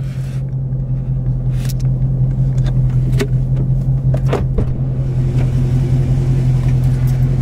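Dodge Scat Pack's 6.4-litre HEMI V8 idling, a steady low drone heard inside the cabin, with a few faint clicks around the middle.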